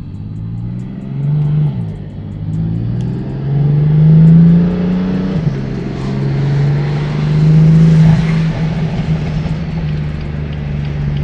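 Car engine with downpipes and its exhaust valves open, idling and revved three times, the pitch rising and dropping back to idle after each rev; the downpipes make it loud.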